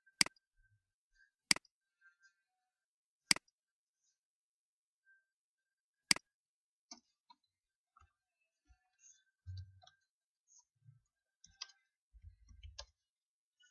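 Computer mouse clicking: four sharp single clicks a second or two apart. Then soft, irregular keyboard typing, with a couple of dull low knocks among the keystrokes.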